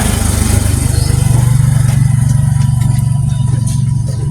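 An engine running steadily close by, with a strong low hum that slowly fades toward the end.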